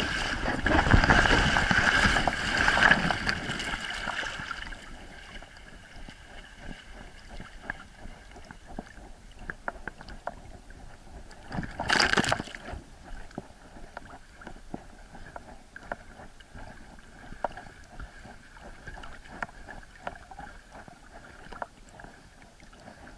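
Water splashing and sloshing close around a swimming dog: heavy splashing for the first four seconds, a short loud splash about twelve seconds in, and softer lapping and gurgling in between.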